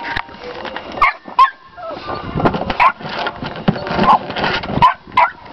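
American bulldogs giving a string of short barks and whines, about half a dozen calls.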